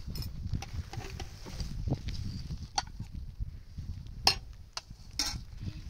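Spoons clinking and scraping on metal and plastic plates as people eat, with one sharp clink about four seconds in, over a low rumble.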